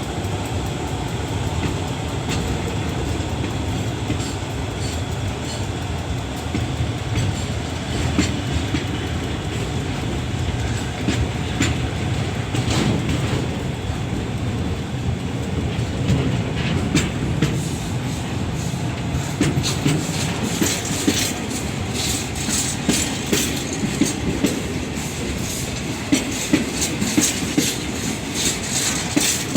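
A train rolling past on the track, with a steady rumble and the wheels clacking over rail joints. The clacks start a little past halfway and come faster and more often toward the end.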